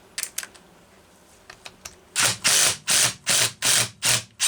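A 7/16 ratchet wrench cranking in quick back-and-forth strokes, six rasping runs of clicks about two to three a second, backing out a chainsaw crankcase screw. A few light clicks come first.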